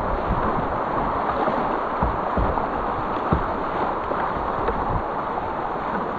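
Shallow whitewater creek rapids rushing steadily around a kayak paddled through them, with a few brief low thumps.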